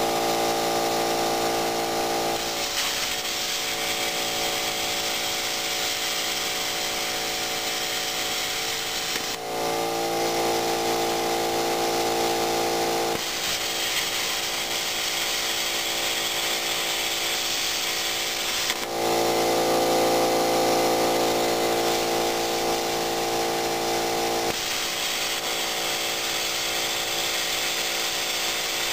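Thermal Dynamics Pakmaster 50XL plasma cutter cutting quarter-inch angle iron: the arc's steady hiss comes on three times, each lasting several seconds, with a humming drone of several steady tones in the gaps between cuts.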